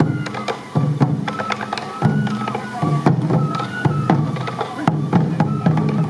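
Traditional sansa odori music: hand-held taiko drums beating a steady, driving rhythm with a bamboo flute playing a high melody over it.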